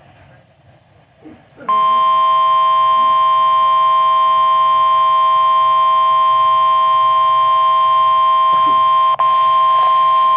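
Weather radio warning alarm tone: a loud, steady electronic tone near 1050 Hz. It starts about two seconds in and holds for about nine seconds, with a short break near the end, and signals that a warning broadcast follows.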